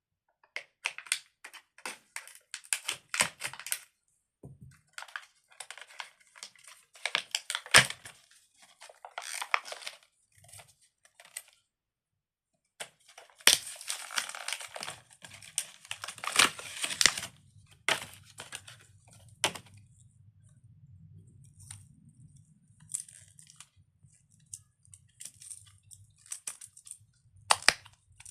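Plastic packaging being cut and torn open, with crinkling rustles and sharp clicks coming in bursts. A faint low hum comes in past the middle.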